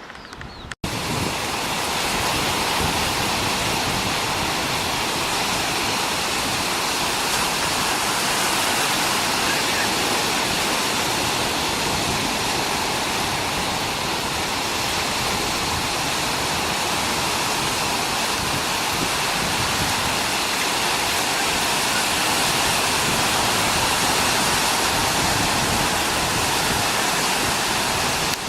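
Ocean surf making a steady, continuous rushing noise, which starts abruptly just under a second in.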